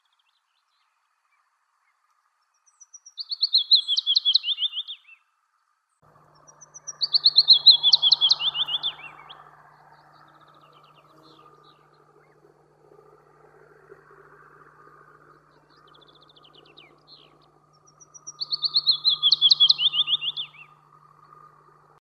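Willow warbler singing: three strophes, each about two seconds of quick sweet notes descending in pitch, with fainter bird notes between them.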